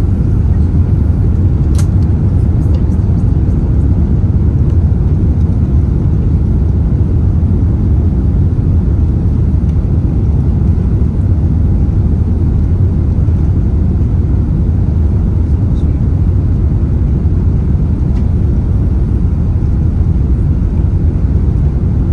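Airbus A380-842's Rolls-Royce Trent 900 engines and airflow making a steady, loud low rumble, with one short click about two seconds in.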